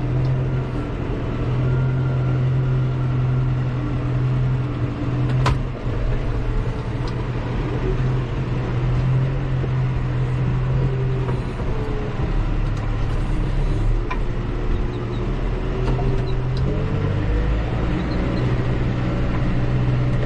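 A 90-horsepower tractor's diesel engine running steadily, heard from inside the cab while the tractor turns at the headland with its front roller and rear implement raised. A single sharp click comes about five seconds in, and the engine note shifts near the end.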